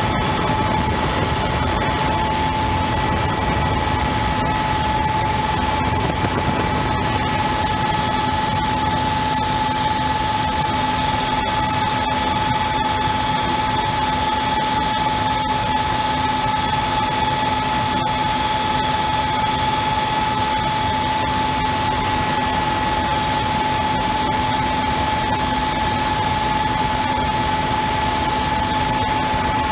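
Mi-35M attack helicopter's turboshaft engines and rotor running steadily in flight, heard from on board: a constant rush of noise with a steady high whine.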